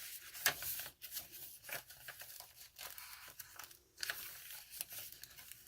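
Paper pages of a handmade junk journal being turned and handled: faint, irregular rustling and crinkling of old paper.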